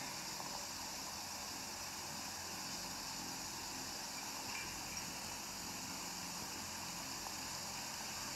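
Steady faint hiss of the microphones and sound system in a pause between recited phrases, with no voice.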